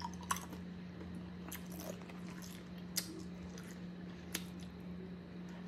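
Close-miked mouth sounds of a person eating boiled crawfish: wet chewing, sucking at the claws and lip smacks, with a few sharper smacks about a third of a second, three seconds and four and a half seconds in. A steady low hum runs underneath.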